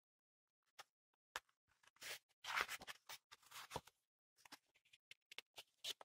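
A picture book's page being turned by hand: a short, quiet paper rustle about two to four seconds in, with a few faint clicks and taps of paper before and after.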